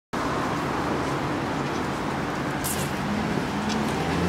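Steady outdoor traffic noise with a low engine hum, and a brief hiss about two and a half seconds in.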